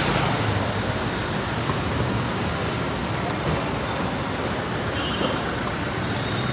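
Street traffic noise with an Alexandria Ramleh tram approaching along its street-level tracks; a thin, high wheel squeal sets in about halfway and is strongest near the end.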